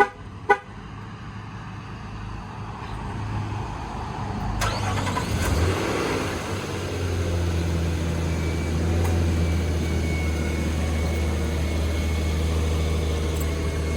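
2019 Nissan Frontier remote-started: short horn chirps near the start, then about four and a half seconds in the engine cranks and catches, swells briefly and settles into a steady idle.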